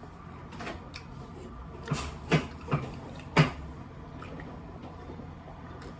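Eating noises: a few short mouth smacks or chewing crunches, four of them close together about two to three and a half seconds in, over a quiet room background.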